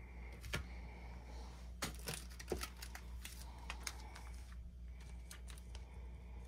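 Baseball trading cards and their packaging being handled: a scattering of soft clicks and rustles, about half a dozen sharp ones in the first few seconds.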